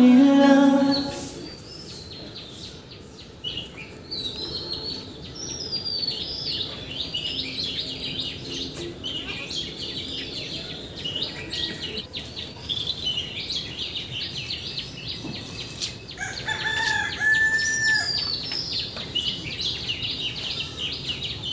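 Small birds chirping busily and continuously, with a rooster crowing once, a single held call, about sixteen seconds in.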